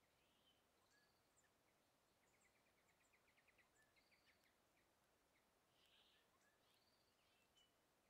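Faint calls of small wild songbirds: scattered short high chirps, with a quick run of repeated notes, about nine a second, in the middle.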